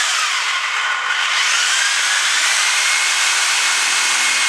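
Power saw running steadily through a frozen solid block of raw meat, with a faint motor whine that rises slightly in pitch over the first couple of seconds.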